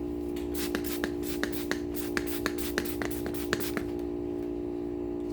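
Hand wet-sanding strokes on a guitar's lacquer finish with fine-grit paper: a quick series of short rubbing strokes, about three a second, that stops about four seconds in. A steady low hum runs underneath.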